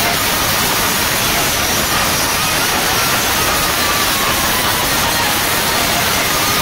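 A loud, steady wall of distorted noise from a huge outdoor DJ sound system overloading the recording, with no beat or tune made out.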